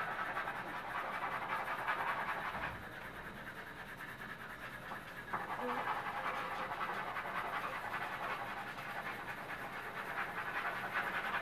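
Several pencils scribbling back and forth on paper, shading in, a continuous rasp of quick strokes. It eases off for a couple of seconds and picks up again about halfway through.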